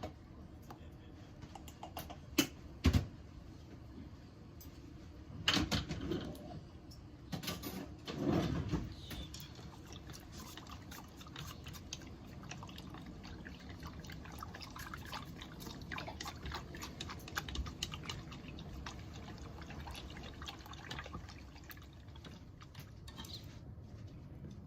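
Kitchen sounds of liquid being poured and dripping, with a couple of sharp knocks in the first few seconds and louder stretches of pouring around six and eight seconds in.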